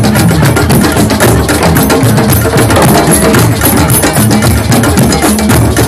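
A drum circle of djembes and other drums played together in a fast, steady rhythm, with many strokes a second overlapping.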